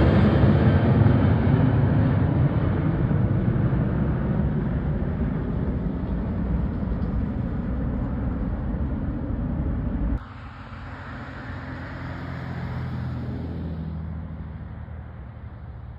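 Twin turbofan engines of a Boeing 737-700 climbing out overhead, a loud low jet rumble that fades steadily as the aircraft flies away. About ten seconds in it cuts off abruptly to a much quieter, distant low rumble that swells slightly and fades again.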